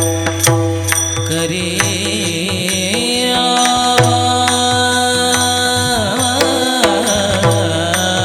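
Devotional kirtan music: held chords and melody with repeated low hand-drum strokes and sharp clashes of small hand cymbals. About three-quarters of the way in, a long sung note bends down in pitch and rises again.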